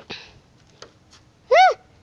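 A few light clicks and a brief rustle, then about a second and a half in a short, loud, high-pitched yelp whose pitch rises and falls.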